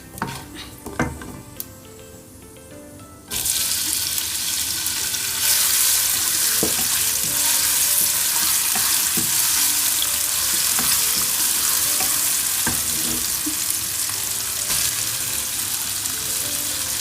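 Whole spices frying in oil in a pan, with a few spatula clicks, then about three seconds in a sudden loud sizzle as chopped onion goes into the hot oil and keeps frying while it is stirred.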